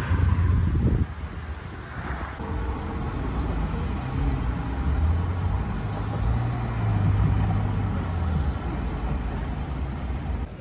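Motor vehicle rumbling, with a low engine hum that shifts in pitch a few times.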